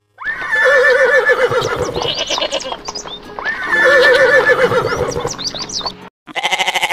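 Recorded horse whinny, the same wavering call heard twice, followed near the end by a short buzzy animal call.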